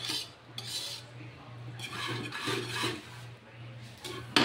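Wire whisk stirring and scraping through thick, fully cooked maja blanca (corn and coconut-milk pudding) in a large metal wok, in several rasping strokes, with a sharper knock against the pan near the end. A steady low hum runs underneath.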